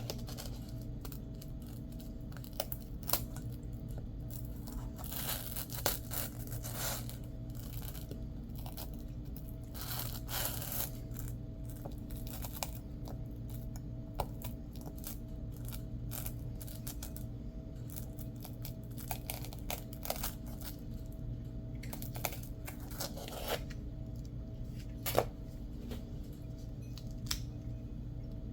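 Hands working on a handmade fabric-and-Velcro patch: scattered clicks, scrapes and short tearing or rustling sounds at irregular intervals, over a steady low hum.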